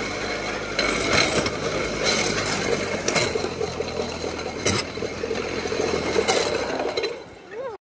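Riding down a long roller slide: the rollers spin and rattle steadily under the rider, with a buzzing hum and several sharp knocks along the way. The rattle dies down just before the end and then cuts off suddenly.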